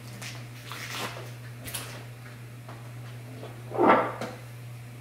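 Grocery packages being handled and set down: soft rustles and light knocks, the loudest one about four seconds in, over a steady low hum.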